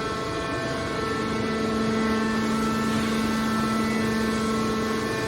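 Hydraulic metal baler running: a steady mechanical hum with a pitched whine from its pump and motor.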